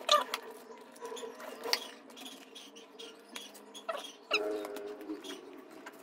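Silicone spatula scraping through stiff egg-white meringue and squeaking against it and the parchment paper lining a baking pan. The sound is a run of short scrapes and clicks, with brief squeaks, the clearest a little past halfway.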